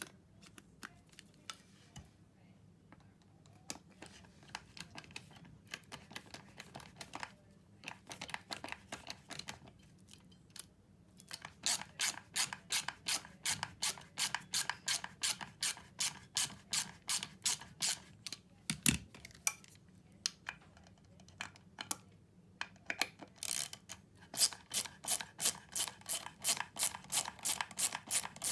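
Ratchet screwdriver's pawl clicking as the handle is turned back and forth. The first clicks are scattered and faint. Then comes a steady run of about four clicks a second, which breaks off briefly and starts again.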